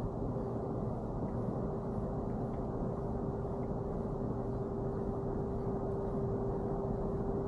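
Fishing kayak under way while trolling: a steady low rush of water and air, with a constant hum that grows a little stronger after the middle.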